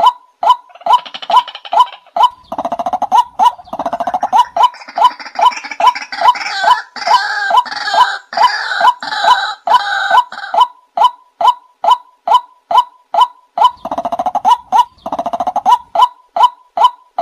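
White-breasted waterhen calling: a steady run of sharp, repeated notes, about three a second, broken twice by stretches of harsh croaking, with several calls overlapping in the middle.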